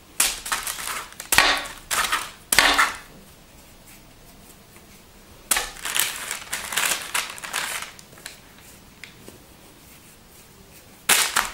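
Hands handling and shaping soft bread dough on parchment paper on a baking tray, the paper rustling and crinkling in short bursts, with a longer stretch of rustling about halfway through.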